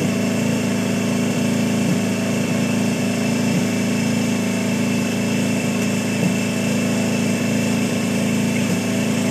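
Small riding lawn tractor's engine idling steadily.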